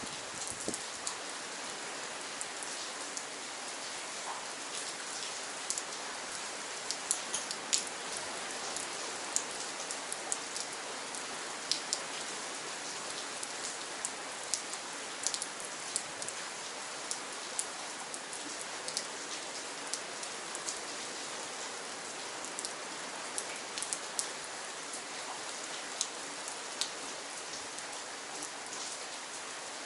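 Steady rain: an even hiss with many sharp, close drop hits scattered throughout.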